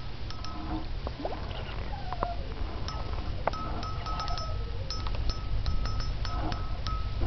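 Spinning reel being cranked as a hooked asp is played in, giving a run of short repeated clicks and brief whirring tones over a low rumble.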